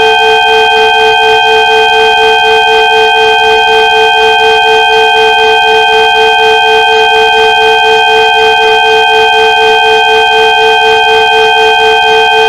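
Synthesized sound-therapy frequency tones: several steady pure tones held together without change, the lowest and loudest one pulsing quickly and evenly.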